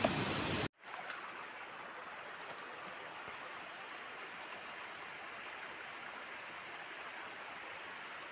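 A louder rush of noise that cuts off abruptly under a second in, then a faint, steady hiss of outdoor background noise.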